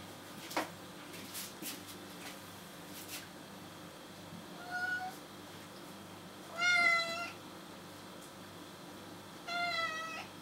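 Six-week-old seal point kitten meowing three times, short high-pitched mews with the middle one the longest and loudest. A few faint clicks come in the first few seconds.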